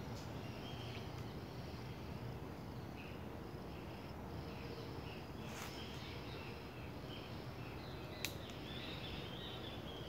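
Outdoor ambience: a steady low rumble of background noise with faint high chirping scattered through, and two sharp clicks, about five and a half and eight seconds in.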